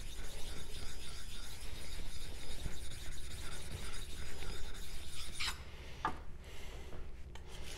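A small block scrubbed back and forth across the surface of a wet 5000-grit ceramic whetstone: a steady scrubbing rub that stops about five and a half seconds in, followed by a couple of faint clicks. The stone is being cleared of loaded-up swarf.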